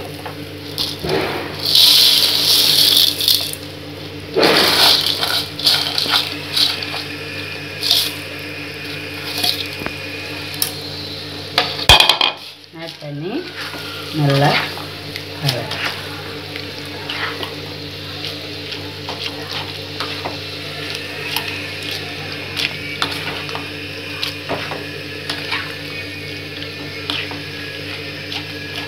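Dry instant noodles tipped from a bowl into a non-stick kadai of watery tomato-onion masala, then stirred and scraped with a spatula: a loud rush as they go in a couple of seconds in, then wet sloshing, scraping and light clacks of the spatula against the pan, over a steady low hum.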